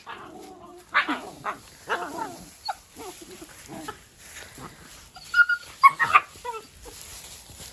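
Dalmatian puppies barking and yipping at play: a string of short, high calls, loudest in a quick cluster about five to six seconds in.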